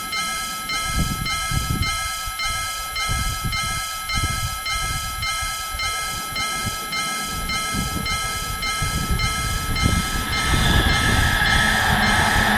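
Japanese railroad crossing alarm ringing in a steady rhythm of about three strikes a second, over the rumble of a passing train. A louder rushing noise comes up about ten seconds in.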